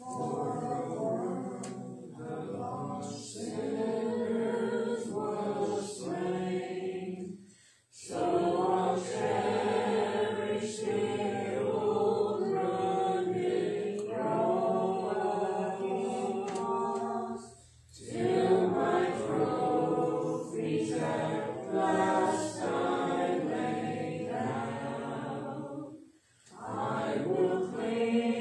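Congregation singing a hymn a cappella, with no instruments. The singing comes in long phrases, with short breaks between lines about 8, 17 and 26 seconds in.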